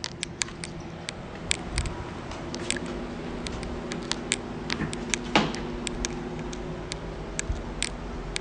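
Irregular small metallic clicks and rattles of a key and door lock being worked, with one louder clack a little past halfway, over a faint steady hum.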